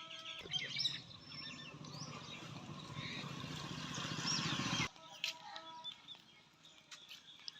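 Small birds chirping outdoors over a steady rushing noise, which cuts off abruptly about five seconds in, leaving only faint chirps.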